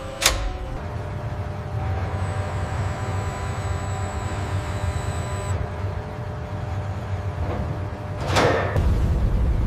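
Steady low mechanical hum of factory machinery with faint steady tones. There is a sharp whoosh about a quarter second in and a longer whoosh about eight and a half seconds in, after which a deeper rumble swells.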